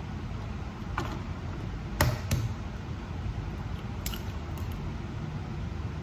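An egg taken from a plastic egg carton and cracked open over a bowl: a few sharp taps and clicks, the loudest two close together about two seconds in, over a low steady hum.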